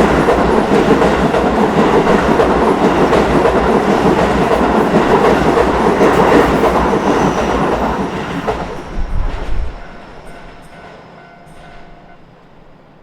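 Keio Line electric train passing over a level crossing, its wheels clattering over the rail joints. It stays loud for about eight seconds, then fades away over the next second or two.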